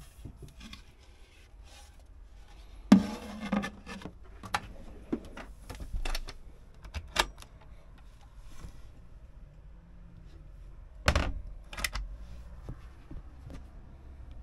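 Lids and hatches of motorhome furniture being handled: a string of sharp clicks and knocks, the loudest about three seconds in and again about eleven seconds in.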